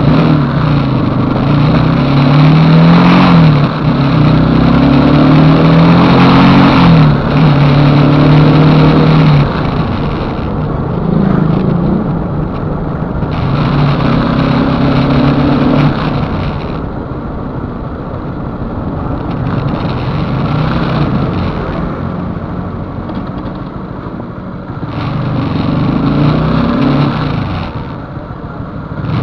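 Motorcycle engine running under way, its pitch rising and falling again and again as it speeds up and eases off, over a steady rush of wind and road noise. It is loudest for the first ten seconds or so, then runs lower and quieter for a stretch before picking up again near the end.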